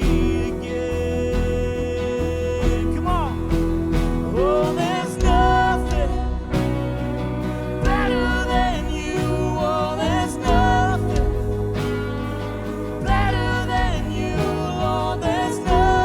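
A live worship band playing a contemporary Christian song: drums, bass and keys under a gliding sung melody.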